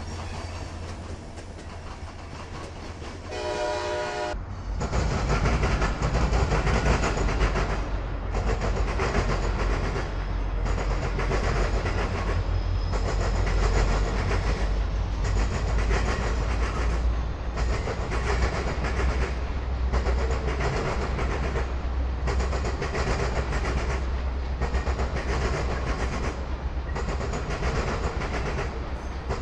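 Diesel locomotives rumbling past, with a brief train horn blast about three seconds in. Then a passenger train rolls by over a steady low rumble, its wheels clattering over the rail joints in a rhythmic clickety-clack that repeats a little over once a second.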